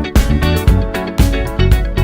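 Funk-pop background music: a strummed electric guitar riff over bass and a steady drum beat, with no vocals yet.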